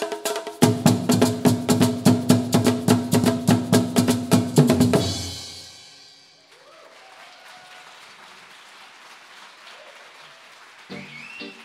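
Live percussion ensemble playing a fast, even drum rhythm for Afro-Brazilian dance, with deep drum strokes joining just after the start; it stops about five seconds in and the sound dies away. Near the end a guitar begins playing plucked notes.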